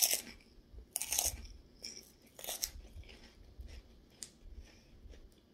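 Close-up crunching and chewing of puffed pork rinds, with loud crisp crunches at the start, about a second in and about two and a half seconds in, then softer chewing.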